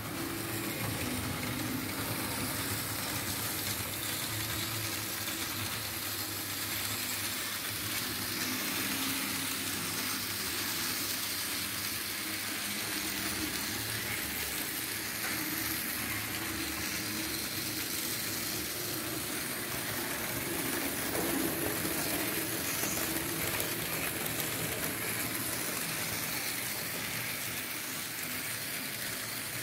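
Märklin H0 model trains running on the layout: a steady rolling hiss of wheels on the track, with a faint low motor hum underneath.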